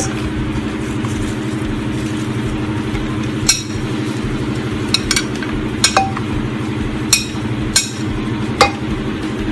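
About seven light clinks, spread over the second half, as sliced carrots are tipped from a plate into a slow cooker's crock, over a steady low mechanical hum.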